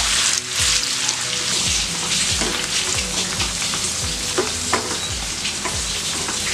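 Batter-coated cauliflower florets deep-frying in hot oil with a steady sizzle, stirred now and then with a wire skimmer that lightly scrapes the pan.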